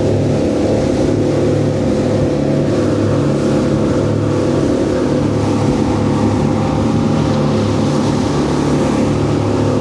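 Motorboat engine running steadily at speed, with wind and water rush.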